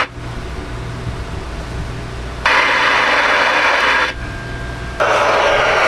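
Receiver static hiss from a Stryker SR-497 ten-meter radio's speaker, switching on and off abruptly. It cuts off at the start, returns about two and a half seconds in for a second and a half, and comes back about five seconds in. A low hum fills the gaps.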